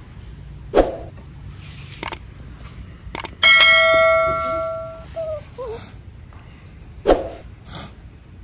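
A subscribe-button sound effect: quick mouse clicks, then a bell ding that rings and fades away over about a second and a half. Two short knocks come about a second in and near the end.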